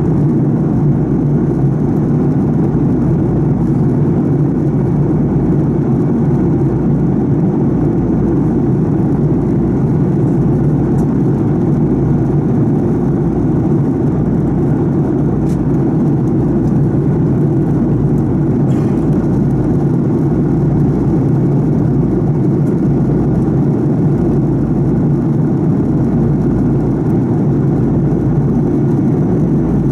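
Steady cabin drone of a Fokker 70's rear-mounted Rolls-Royce Tay turbofan in flight, heard from a window seat right beside the engine. A deep, even rumble that does not change.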